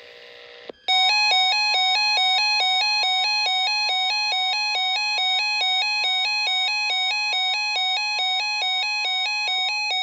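Emergency alert attention signal: a harsh two-pitch beep alternating several times a second over a steady single tone, which drops out near the end. A brief buzzy data burst comes just before it starts. These tones precede a broadcast severe thunderstorm warning.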